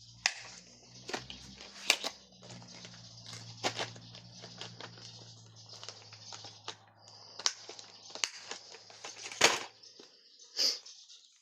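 Paper and craft supplies handled on a tabletop: scattered taps and clicks with some rustling and crinkling, the sharpest knock about nine and a half seconds in. A low steady hum underneath stops near the end.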